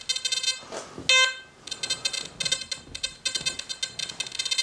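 XP Deus metal detector's remote speaker chattering: a rapid, irregular run of short beeps at several pitches, with one louder beep about a second in. The chatter is false signals from the noisy 11-inch coil at default settings, enough to mask faint targets.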